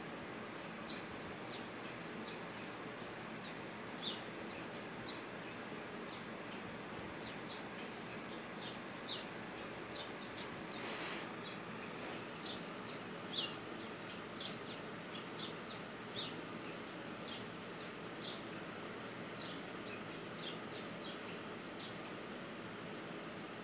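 Many short, high-pitched chirps, about two or three a second, over a steady hiss, with a single sharp click about ten seconds in.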